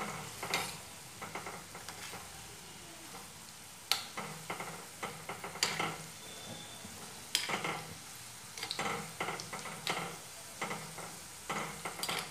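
Hot ghee sizzling as besan dough logs deep-fry in a steel kadhai, with a metal spoon clinking against the pan over and over as the logs are turned.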